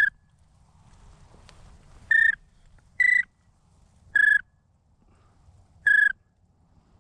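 Duck whistle call blown in short, clear single notes, one every second or two, calling to ducks in flight.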